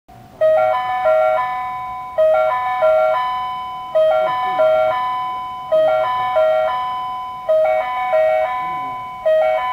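Railway platform train-approach chime from a ceiling horn loudspeaker: a short phrase of bell-like notes that repeats over and over, about every 1.8 seconds, warning that a train is approaching.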